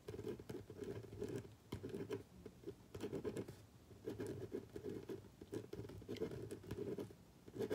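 Soft scratching and rustling right at the phone's microphone, coming in uneven bursts with small clicks, as of the phone being handled or rubbing against hair or fabric.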